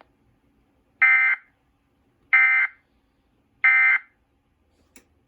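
Emergency Alert System end-of-message signal: three short, identical buzzy bursts of SAME digital data tones, spaced just over a second apart, marking the close of the warning.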